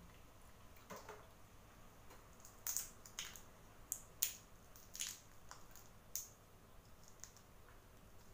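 A large boiled shrimp being peeled by hand: short, irregular crackles and wet squishes as the shell is pulled away, with a few sharper snaps in the middle.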